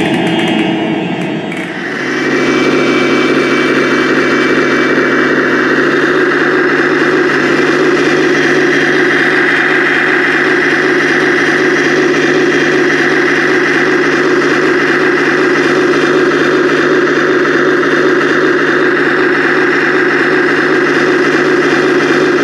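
Radio-controlled model tank running: a steady, even mechanical drone that settles in about two seconds in and holds without change.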